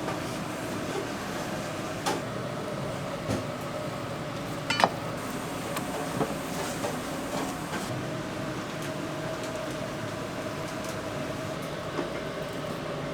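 Restaurant kitchen background: a steady machine hum with a held tone, broken by a few knocks and clinks of kitchenware. The loudest is a ringing clink about five seconds in.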